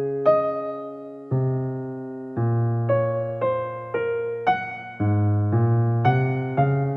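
Background music: a slow, gentle electric piano melody, single notes and chords struck every half second to a second and left to ring out.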